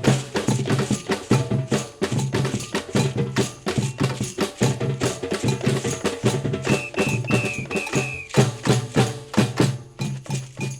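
Brazilian samba-style percussion group playing: a steady low bass-drum pulse under dense, rapid stick and hand strokes. About two-thirds in come five short high whistle blasts.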